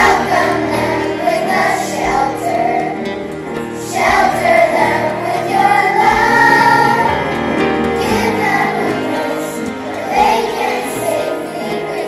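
Children's choir singing a melody together over instrumental accompaniment.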